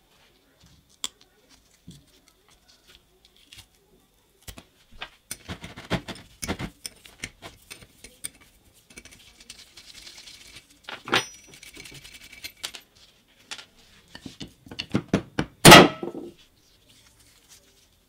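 Gloved hands working loose and lifting off the metal cylinder head of an old piston air compressor: scattered metal clicks and clinks, a stretch of soft rustling and scraping, and one loud knock a couple of seconds before the end.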